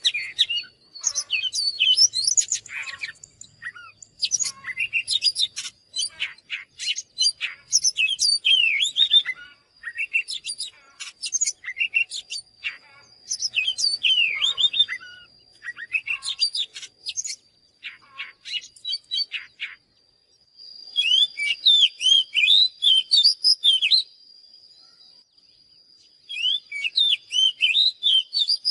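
Oriental magpie-robin singing: varied phrases of quick, sweet whistles and chattering notes with short pauses between them. Denser, faster bursts come in the last third. A faint steady high tone runs underneath.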